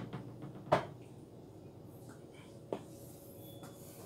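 Stiletto-heeled clear plastic mules shifting on a terrazzo floor: a sharp heel tap about a second in and a fainter tap near three seconds.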